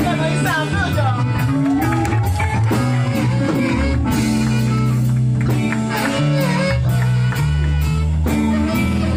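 A live band playing blues in a bar: electric guitar with sliding, bending notes over a walking bass line and a steady drum beat.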